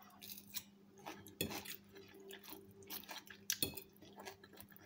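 Metal utensil tossing a yogurt-dressed salad on a ceramic plate: faint, irregular clinks against the plate and soft wet squishes of lettuce and dressing.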